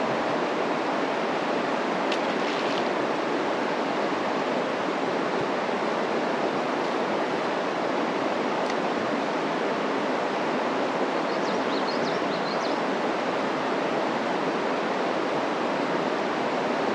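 Steady rushing of fast river current tumbling below small waterfalls.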